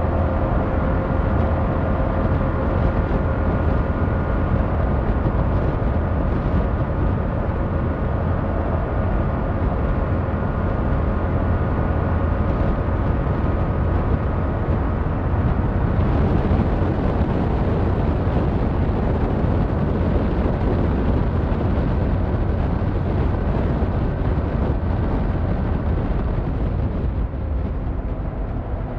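Yamaha MT-07's 689cc inline-twin engine running at steady riding revs, with a dense rush of wind noise underneath; the engine note eases off slightly near the end.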